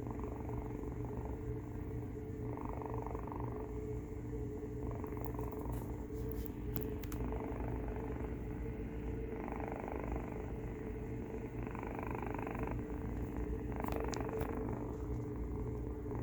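Domestic cat purring with a noisy snore-purr. There is a continuous low rumble, and a raspy layer swells and fades about every couple of seconds as it breathes in and out.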